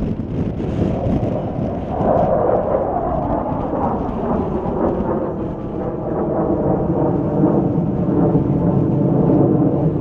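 Jet engine noise from a formation of F-16 fighter jets flying an aerobatic manoeuvre, a loud steady rumble that swells about two seconds in.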